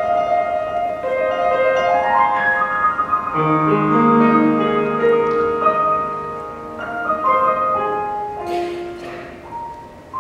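Grand piano playing: a rising run of notes, then fuller low chords that ring on and fade.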